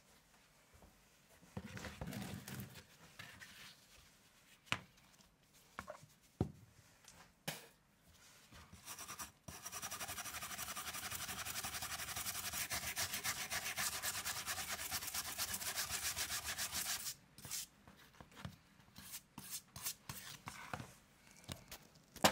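Grit and dust being brushed and scraped across a workbench and into a cardboard tray. Scattered light taps and scrapes come first, then about seven seconds of quick, even scrubbing strokes starting about nine seconds in, then more light taps.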